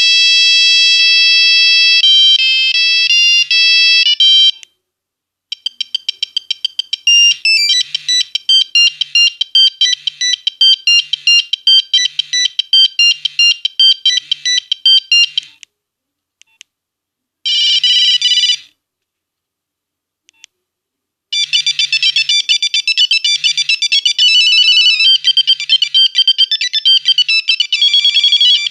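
Nokia 1101 mobile phone playing its monophonic ringtones one after another through its small speaker. A stepping beeped melody stops about four and a half seconds in, and after a short pause a fast run of beeping notes plays until about halfway. A brief one-second tone follows, then after a gap another busy beeping tune begins about three-quarters of the way through.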